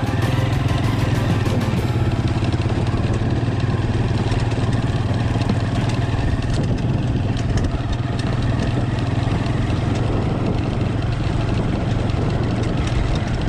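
A steady engine drone at a constant speed, with music playing over it.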